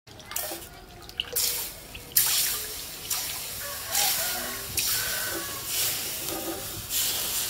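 Water splashing and sloshing in a stone trough as a hand scoops it over a steel knife blade and rubs the blade, in repeated swishes about once a second.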